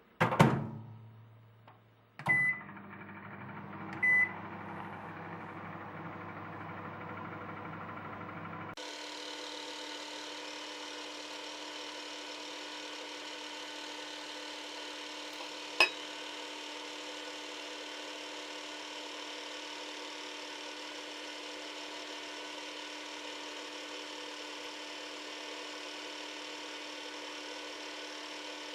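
Microwave oven being started: a sharp bang at the start, two short keypad beeps, then the oven running with a steady hum. About nine seconds in the hum changes abruptly to a higher, even drone, and there is a single click about halfway through.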